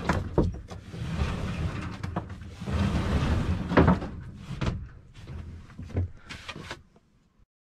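Sail cloth rustling as a roller-furling sail is rolled back up around its mast, with sharp knocks and clicks from the rig and hull. The rustling dies away about five seconds in, leaving a few clicks and then near quiet.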